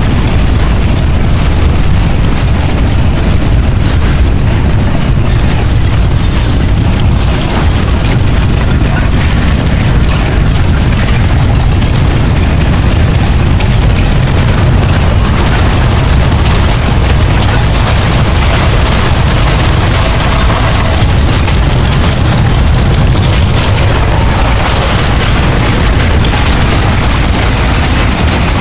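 Earthquake sound effect: a loud, continuous deep rumble with crackling and crumbling noise over it, steady throughout.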